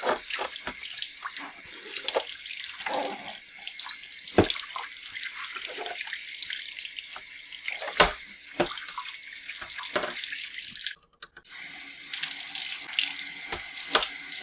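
Kitchen tap running into a sink while fridge shelves are washed and rinsed, with scattered sharp knocks as the shelves are handled against the sink. The water sound cuts out briefly about eleven seconds in.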